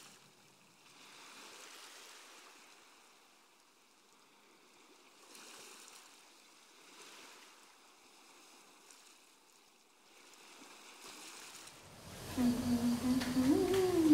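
A soft rushing of water swells and fades gently. About twelve seconds in, a woman starts humming a slow melody, and her humming is the loudest sound.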